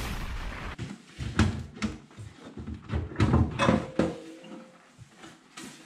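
Irregular knocks and clattering from a wall-hung gas boiler's casing and cupboard being handled, about ten sharp hits over a few seconds, with rustling handling noise close to the microphone.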